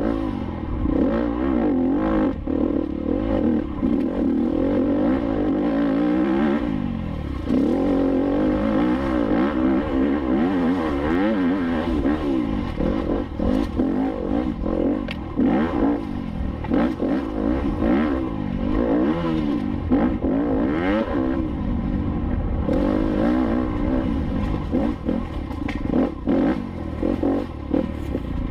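Enduro motorcycle engine revving hard and easing off over and over, its pitch rising and falling with the throttle, with scattered sharp knocks and clatter as the bike rides over rough trail.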